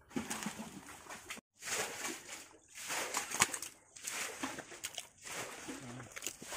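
Wet mud and water squelching and sloshing in a run of irregular bursts, as from feet and handling in a muddy puddle, broken by a brief dead gap about a second and a half in.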